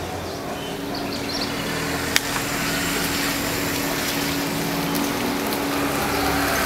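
A steady engine hum over street noise, with one sharp click about two seconds in.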